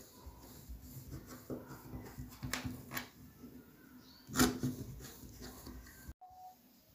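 Kitchen knife cutting through the set chocolate topping of a sheet cake in a metal baking tray: scattered sharp clicks and scrapes, the loudest about four and a half seconds in.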